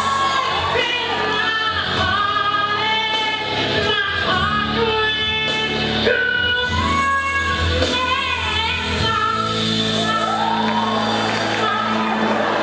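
A singer belting a song into a handheld microphone over backing music, holding long notes with vibrato.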